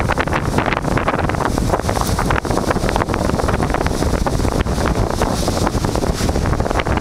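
Strong wind blowing across the microphone: a loud, continuous low rumble with constant gusty flutter.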